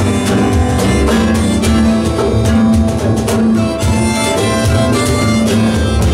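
Acoustic band playing: harmonica holding long notes over strummed acoustic guitar, double bass and a steady cajón beat.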